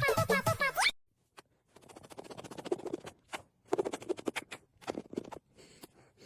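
Upbeat background music that cuts off about a second in, followed by irregular light scratching and tapping with a few short clicks.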